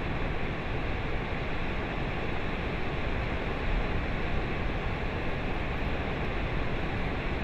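Steady rush of Kaieteur Falls, a very large single-drop waterfall in high flow, its water plunging into a mist-filled gorge.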